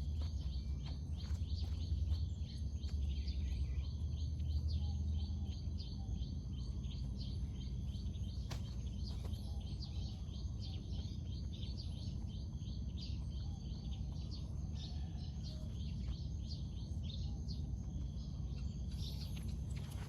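Birds chirping in many quick, high-pitched notes, with a low rumble over the first few seconds.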